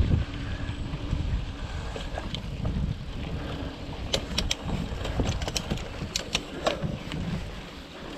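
Wind rumbling on the microphone while riding a mountain bike down a dirt trail, with scattered clicks and rattles from the bike and trail from about four seconds in.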